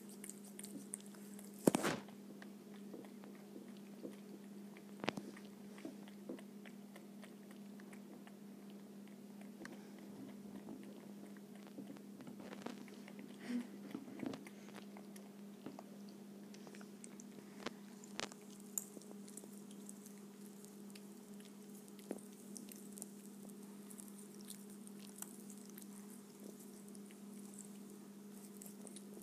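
A cat chewing and crunching peanuts in the shell from a ceramic bowl: scattered sharp clicks and crackles, the loudest about two seconds in, over a steady low hum.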